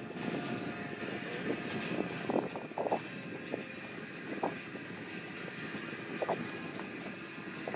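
Boat engine running steadily at idle, with wind and water noise and a few short knocks.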